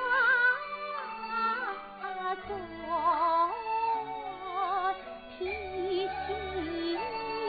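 Female Kunqu opera singing in the dan role: a high sung melody with wavering vibrato on long held notes, over instrumental accompaniment.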